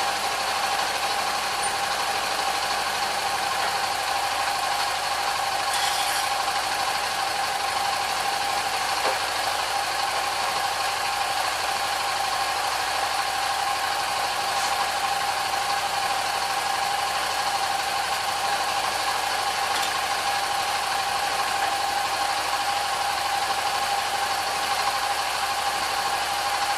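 Honda Pioneer 700 side-by-side's single-cylinder engine idling steadily after an oil change, run so the new oil filter can be checked for leaks.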